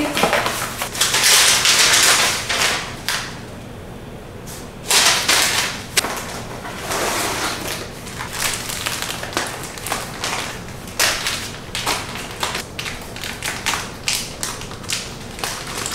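Cardboard box and plastic pillow packaging being handled: several bursts of rustling and crinkling, then a run of short taps and knocks in the second half.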